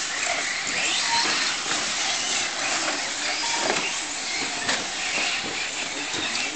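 Electric radio-controlled short-course trucks racing: a steady hiss of motors, gears and tyres, with faint whines that rise and fall as the trucks speed up and slow down.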